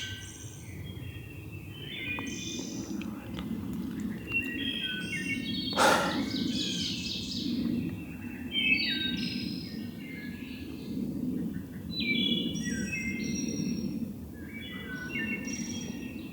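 Several songbirds singing in spring woodland, short phrases one after another, over a steady low background rush. There is one sharp knock about six seconds in.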